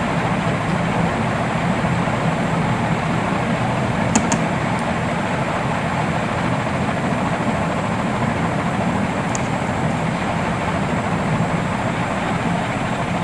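Steady background noise: an even rushing hiss with a low hum beneath it, with a couple of faint high ticks about four and nine seconds in.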